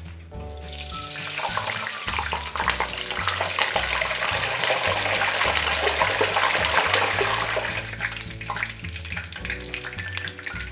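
Long john doughnuts deep-frying in hot oil, sizzling and crackling as they are turned over with tongs and a wire strainer. The sizzle swells about half a second in and dies down near the end, over background music.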